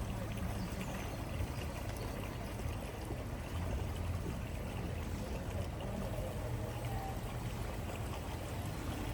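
Floodwater flowing steadily over a road ford, with a steady low rumble underneath.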